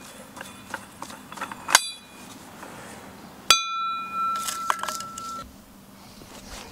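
Metal pieces clinking and clanking, several light clinks, then a sharper one just under two seconds in and a louder clank about three and a half seconds in that rings on for about two seconds.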